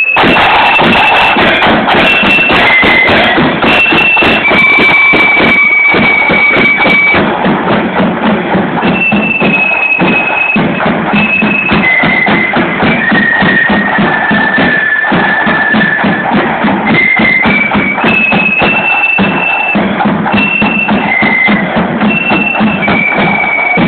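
Marching flute band playing a tune, a high melody of held notes over rapid snare drumming, loud and close.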